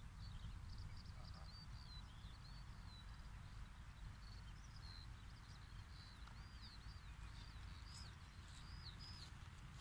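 Faint songbirds chirping repeatedly, short high notes one after another, over a low steady rumble of wind on the microphone.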